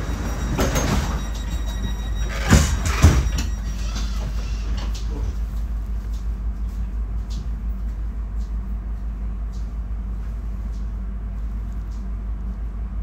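Inside a DB Class 430 S-Bahn electric train: the train's steady low hum, with a clatter about a second in and two loud thuds about two and a half and three seconds in. A faint high tone fades out about four seconds in, and faint regular ticks follow.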